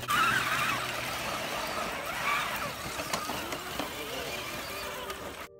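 Electric motors and gearboxes of RC rock crawlers whining as they climb over rocks, the pitch wavering with the throttle, with tyres scrabbling on stone. The sound cuts off suddenly near the end.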